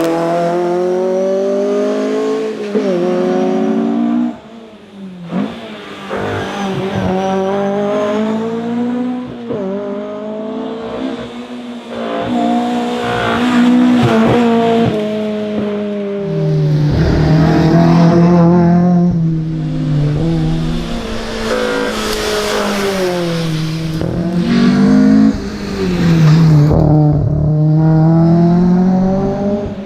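Fiat 131 Abarth Rallye's twin-cam four-cylinder engine being driven hard: it revs up through the gears and drops back again and again, with short lifts off the throttle.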